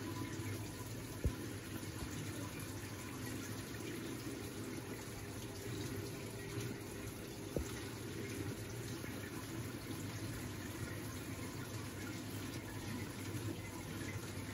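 Steady running and trickling of water circulating inside vertical aeroponic tower gardens, with a low steady hum under it. Two brief clicks stand out, about a second in and again a little past halfway.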